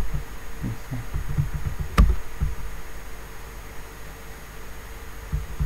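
Computer keyboard keys being pressed, with one sharp key click about two seconds in and soft low thuds before it, over a steady faint hiss and hum.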